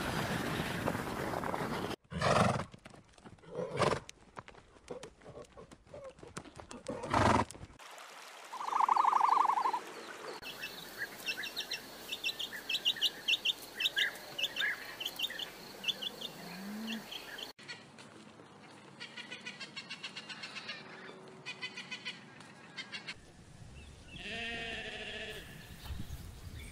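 A run of animal sounds. Snow crunches and thuds as a polar bear digs. A brief steady tone-like call follows. Then baby chicks peep in quick high chirps for several seconds, and a sheep bleats near the end.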